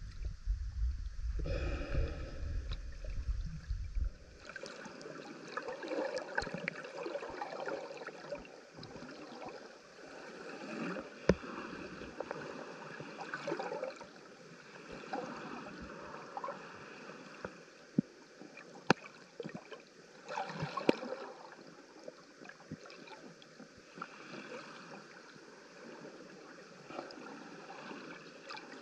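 Underwater water noise: a low rumble for about the first four seconds, then an even wash of hiss with scattered clicks and crackles, and a few sharper snaps through the middle.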